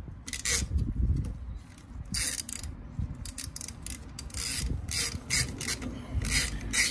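Ratchet wrench clicking in short, irregular bursts as it screws a bolt into a threaded jacking hole in a Subaru WRX rear brake rotor. The bolt is forcing the rust-seized rotor off the hub.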